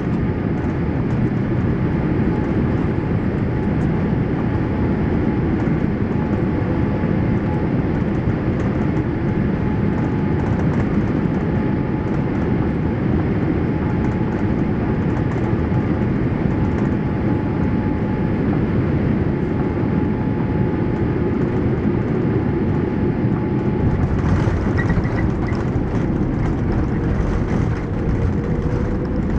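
Steady cabin rumble of a Boeing 787-8 airliner with Rolls-Royce Trent 1000 engines, heard from a passenger seat. About 24 s in, a higher hiss joins it, and near the end a faint tone rises.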